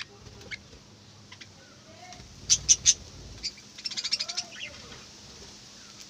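Budgerigars chirping: three loud, sharp chirps about halfway through, then a quick run of short chirps, amid softer chatter.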